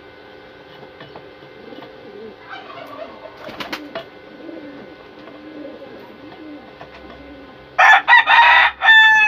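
Pigeons coo softly in the background, and near the end a rooster crows loudly, one long crow with a short break that falls in pitch at its close.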